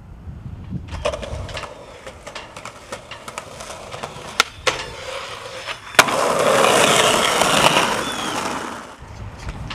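Skateboard wheels rolling on pavement, with a few sharp clacks of the board about four and a half and six seconds in, followed by about two seconds of louder scraping from the board.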